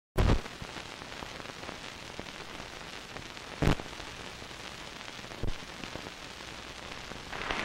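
Steady hiss and crackle of an old 16mm film soundtrack, with three short loud pops, one right at the start and others about three and a half and five and a half seconds in. A louder, noisy sound starts to rise just before the end.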